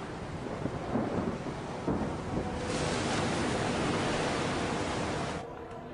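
Stormy ocean surf and wind: a steady rushing that swells louder about two and a half seconds in as a big wave breaks, then drops off suddenly near the end.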